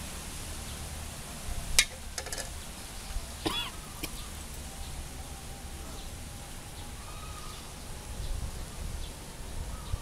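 Outdoor ambience with a steady low rumble, a single sharp click a little under two seconds in, a few softer clicks right after it, and a short high chirp about three and a half seconds in.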